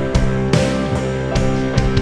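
Worship band playing an instrumental passage: sustained guitar chords over a steady drum beat, with no singing.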